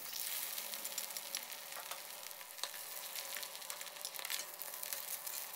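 Hoi tod batter pancake with shellfish and egg frying in hot oil in a wok over medium heat: a steady crackling sizzle dotted with sharp little pops as the batter fries to a golden crisp.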